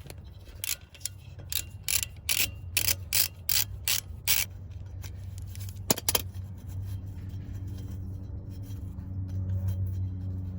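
A quick, irregular run of sharp metallic clicks and clinks from hand tools and small metal parts being handled during a brake rotor removal. Two more clicks come about six seconds in, and after them a steady low hum.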